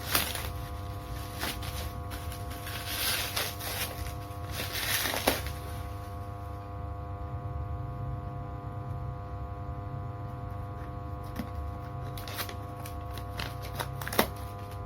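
Parcel packaging being unwrapped by hand: bursts of rustling and crinkling for the first few seconds, then scattered handling clicks and ticks, over a steady electrical mains hum.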